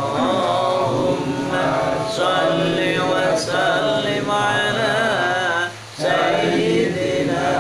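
A group of men chanting Islamic dhikr together in unison. There is a brief break for breath a little before six seconds in, and then the chant resumes.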